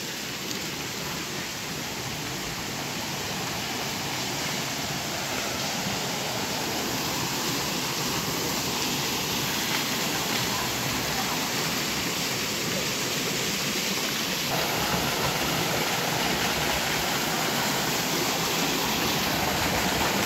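Steady rush of running water: a shallow stream and a row of spring-water spouts pouring down a mossy rock wall, slowly growing a little louder.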